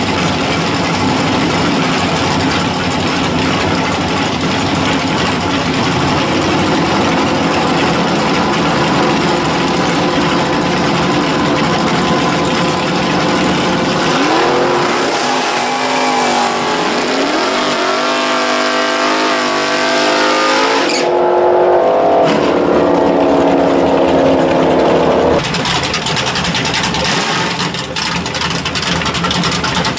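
Drag-racing V8 engines at the starting line. A dense, steady engine noise gives way about halfway in to an engine revving up and down in rising and falling sweeps, then a louder steady engine note, the loudest part, that cuts off suddenly a few seconds later.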